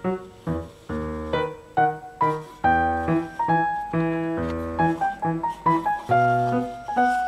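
Background piano music: struck notes several times a second over a low bass line.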